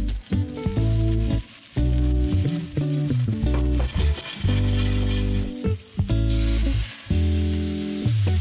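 Starch-coated chicken thigh pieces sizzling in oil in a nonstick frying pan over medium-high heat, turned now and then with tongs. Background music with held low notes plays over the sizzle.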